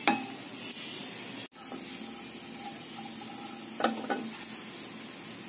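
Whole cumin seeds sizzling in hot ghee in a kadhai, stirred now and then with a wooden spatula: the seeds are roasting as the first tempering step. The sound cuts out for an instant about one and a half seconds in, and there is a short sharper sound near four seconds.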